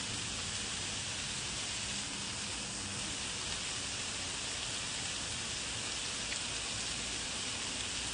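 Pork belly (samgyeopsal) sizzling steadily on a hot grill plate, an even hiss with no breaks.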